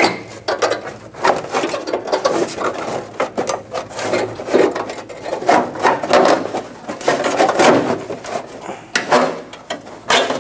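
Thin embossed metal heat shield under a Ford Focus crinkling, scraping and rattling against the underbody as it is worked back into place by hand, in an irregular run of rubs and small clicks.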